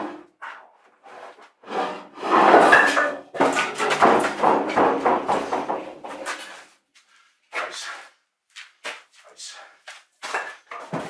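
Heavy timber keel beam being shifted on trestles: a loud wooden scraping and rubbing for about four seconds, then a string of short wooden knocks.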